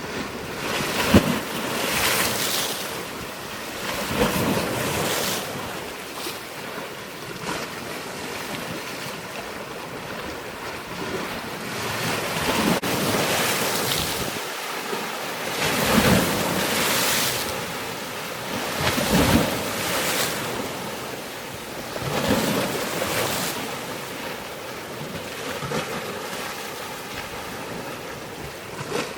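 Waves washing in repeated surges every few seconds, with wind noise on the microphone.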